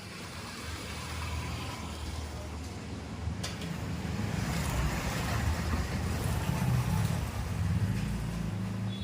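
A motor vehicle's engine running nearby, a low rumble that grows louder over several seconds and eases slightly near the end, with a single sharp click partway through.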